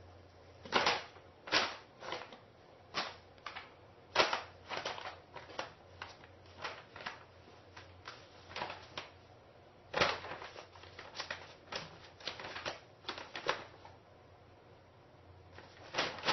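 Brown paper bag crackling and rustling in irregular bursts as a cat moves about inside it, with a short lull near the end before a last burst.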